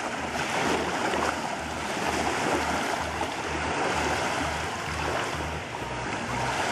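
Steady rushing outdoor noise with no speech or music, most likely wind blowing across the camera microphone beside the lake.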